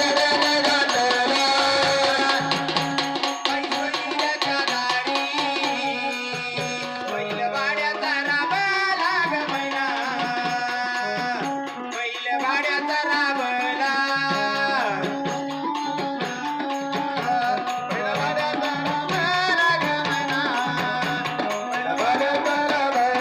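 Live Marathi jagran folk song: a singer's voice over keyboard and hand drums keeping a steady rhythm.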